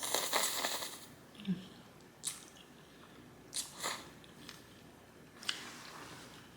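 Close-miked mouth sounds of someone eating spaghetti with meat sauce. It opens with a loud noisy sound lasting about a second, followed by scattered sharp mouth clicks while chewing, and a longer noisy stretch near the end.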